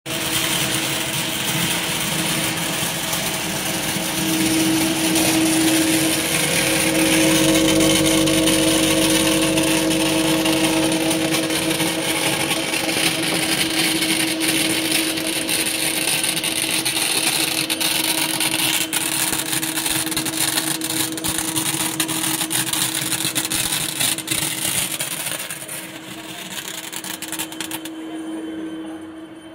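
Belt-type optical color sorter running on shrimp skin: a steady machine hum with a hiss and rapid clicking throughout. It grows quieter over the last few seconds.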